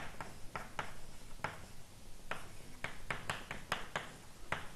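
Chalk writing on a blackboard: a run of about fifteen short, sharp taps at irregular intervals, most closely bunched a little past the middle.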